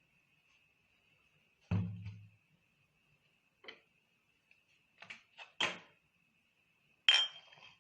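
Kitchen containers and utensils being handled: a dull thud about two seconds in, a few light clicks, and a sharp ringing clink near the end, over a faint steady high whine.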